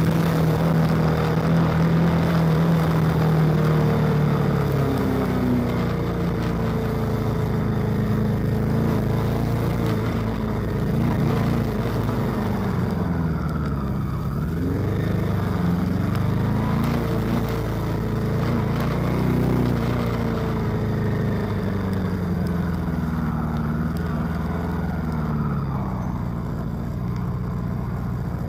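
Honda CB400 motorcycle engine heard from the rider's seat at low speed, its pitch rising and falling several times as the throttle is opened and closed.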